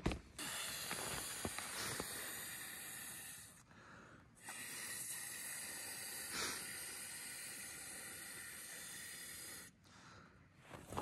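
A man blowing air by mouth into an inflatable inner tube to inflate it. There are two long, steady exhalations of rushing breath, the first about three seconds and the second about five, with a short pause to draw breath between them.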